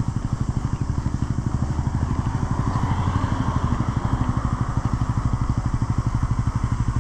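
Motorcycle engine idling in traffic, a steady fast putter.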